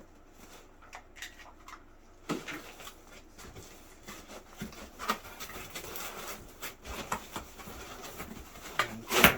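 Packaging being handled and pulled about: rustling and scattered light knocks of cardboard and foam, with a louder burst of knocking and rustling near the end.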